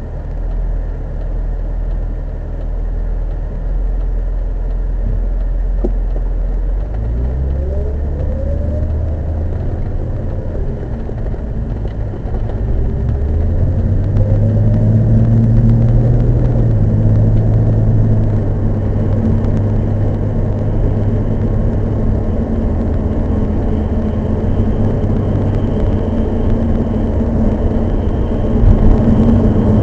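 Car engine and road noise while driving; the engine rises in pitch as the car speeds up about seven seconds in, then runs steadily.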